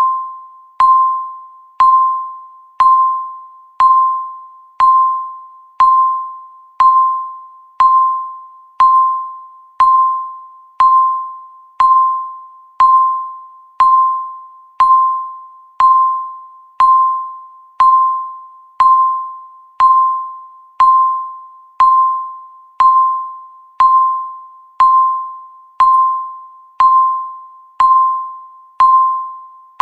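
Countdown timer's electronic beep, one steady high-pitched tone struck once every second. Each beep starts sharply and fades away before the next, marking off the seconds of the countdown.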